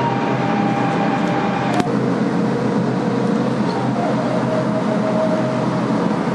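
Steady droning background noise with faint whining tones that shift in pitch, and a single sharp click just under two seconds in.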